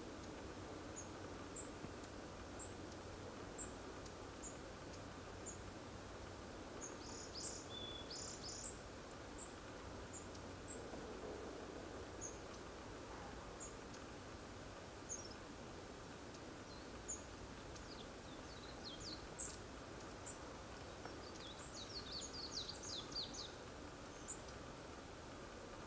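Long-tailed tits calling: thin, very high, short notes scattered throughout, with quick runs of several notes about seven seconds in and again from about eighteen to twenty-three seconds. Faint steady background hiss underneath.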